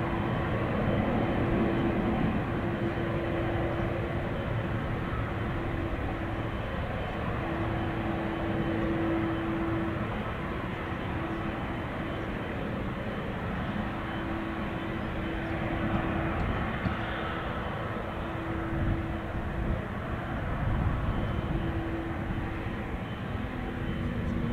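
Airbus A380-861's four Engine Alliance GP7200 turbofans at takeoff thrust as the jet lifts off and climbs away: a steady, even jet noise.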